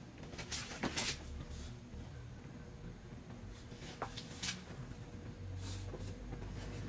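Handling noise of a plastic side splitter being held and pressed up under a car's rocker panel: a few brief scuffs and light knocks, clustered about a second in and again about four seconds in, over a steady low hum.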